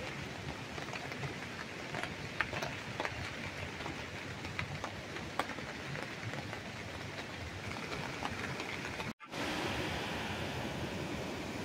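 Rain falling, with scattered drops striking close by. About nine seconds in, it cuts off abruptly and a steadier rushing noise takes over.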